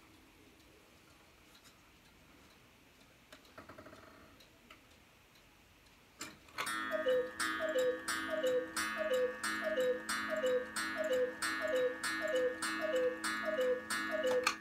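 Black Forest cuckoo clock striking twelve. Faint ticking and a short whir of the movement are followed by a clunk as the strike releases, then about twelve falling two-note cuckoo calls, each paired with a click of the bellows.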